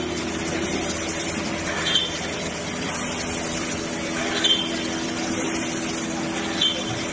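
Woodmaster PRO-MASTER-T4X4 five-axis CNC wood router running: a steady machine noise with a short sharp knock about every two seconds.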